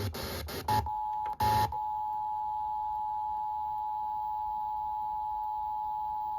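Emergency Alert System two-tone attention signal on a radio broadcast, sounding a severe thunderstorm warning. It sets in as a steady, even pair of close tones after about a second and a half of choppy, cut-up broadcast audio.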